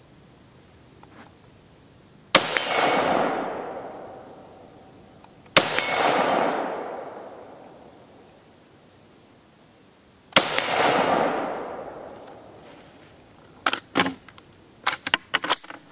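Three rifle shots from a Steyr AUG in 5.56, about three and five seconds apart, each trailing off in a long echo. Near the end, a scatter of light clicks and knocks.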